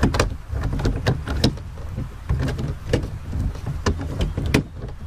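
Hard plastic clicks and knocks at irregular intervals as a fishing rod holder is handled and seated on its wooden mount, over a steady low rumble.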